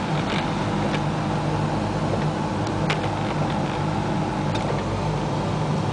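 Steady engine and road noise inside the cabin of a 1988 Isuzu Trooper with its 2.6-litre four-cylinder engine running, with a few light ticks.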